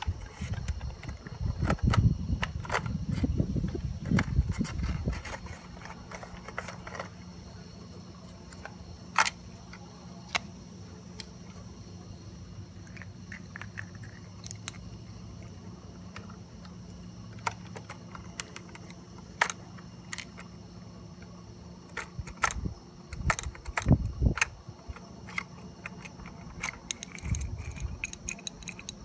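Handling noises from a diecast toy rear-loader garbage truck and its toy carts: small plastic and metal clicks and scrapes as the hopper parts and carts are moved. There is a low rumble in the first few seconds, and a cluster of clicks near the end.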